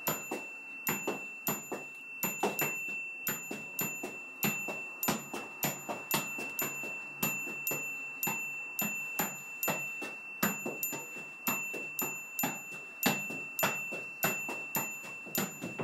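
Football being juggled, the ball struck by foot and knee in a steady rhythm of about two touches a second. A steady high-pitched tone runs underneath.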